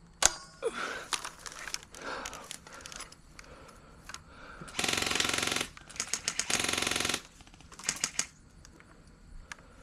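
Airsoft guns firing on full auto: two rattling bursts of rapid shots about halfway through, a short burst a second later, and scattered single shots around them.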